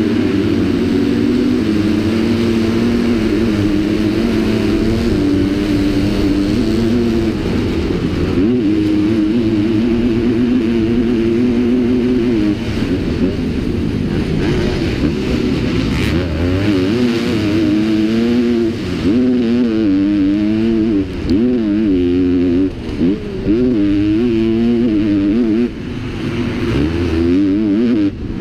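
Motocross bike engine at racing speed, held at high revs for the first dozen seconds, then revving up and down repeatedly with short throttle chops in the second half.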